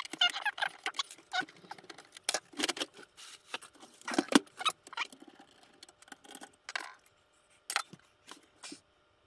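A vintage VCR being opened up: screws undone and its sheet-metal cover and parts lifted off and set down, a run of irregular clicks, scrapes and metal knocks. The knocks are loudest around two and a half to four and a half seconds in, with one more sharp knock near the end.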